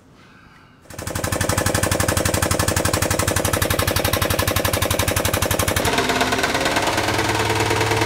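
Air-powered bottle jack pumping with a rapid, even chatter, starting about a second in. About six seconds in it gives way to a forklift engine running steadily.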